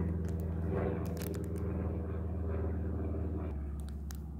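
A steady, low engine-like hum, with a few light clicks and rustles of the kit's packaging being handled.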